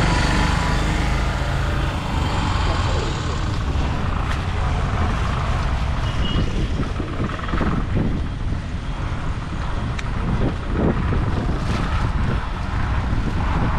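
Road traffic: vehicle engines running and passing in a steady, loud rumble, with faint voices in the background.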